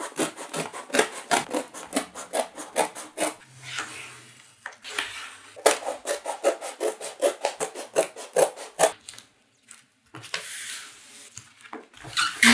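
Scissors cutting through corrugated cardboard: runs of rapid, evenly spaced crunching snips, broken by a pause about three and a half seconds in and again near the end, where softer handling sounds follow.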